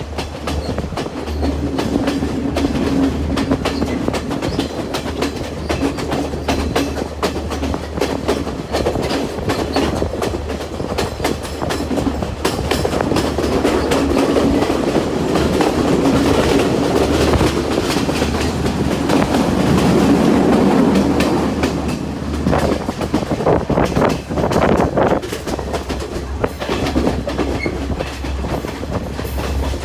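Podi Menike passenger train running along the track: a steady low rumble with a constant stream of clicks and knocks from the wheels on the rails.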